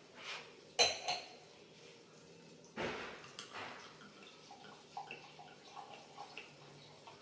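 Two sharp glassy knocks about a second in as a wine glass is set down on the countertop, then Pinot Grigio poured from the bottle into the wine glass with small, irregular glugs and drips.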